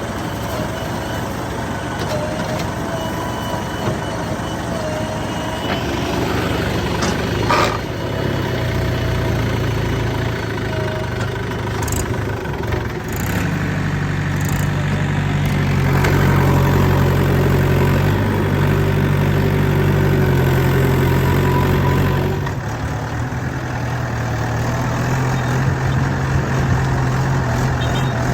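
Heavy diesel engine running. About halfway in its note rises and gets louder for several seconds as it works harder, then drops back to a steadier run. A single sharp knock sounds about a quarter of the way in.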